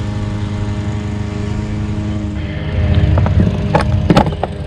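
An engine running steadily with an even low hum. In the second half there are a few sharp knocks and clicks.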